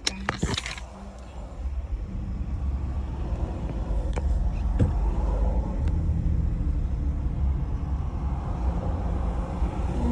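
Steady low rumble of a car's engine and road noise heard from inside the cabin while driving in slow traffic, with a couple of clicks right at the start.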